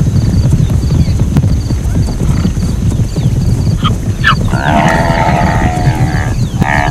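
Zebra calling: a pulsed, braying bark about four and a half seconds in that lasts over a second, then a shorter call near the end. Behind it run a steady low rumble and faint repeated high chirps.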